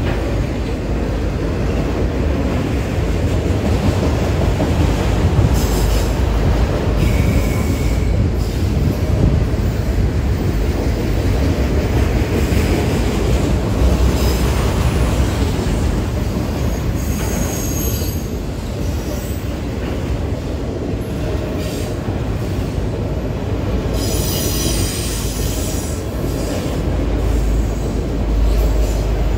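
Cars of a freight train rolling past: a steady rumble of steel wheels on rail, with a few stretches of higher wheel squeal and rattle.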